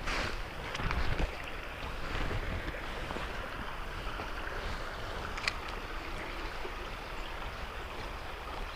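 Stream water running steadily, with a few faint clicks and knocks.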